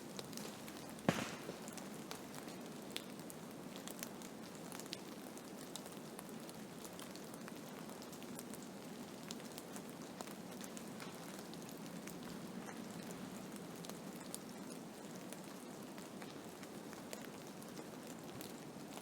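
Blizzard: a steady rush of wind-driven noise with scattered sharp ticks of driven snow striking a surface, one louder tick about a second in.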